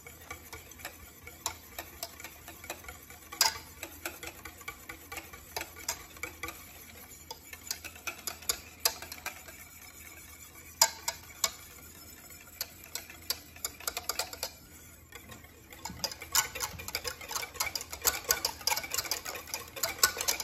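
Wire balloon whisk beating egg-yolk mayonnaise by hand in a stainless steel saucepan, its wires ticking and clicking against the pan. The strokes come faster and denser in the last few seconds.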